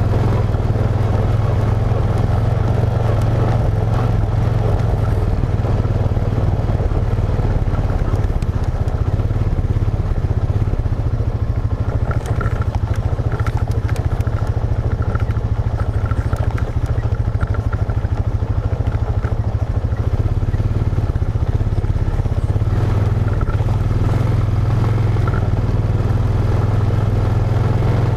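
ATV engine running at a steady pace as the quad rides along a dirt trail: a low, even drone.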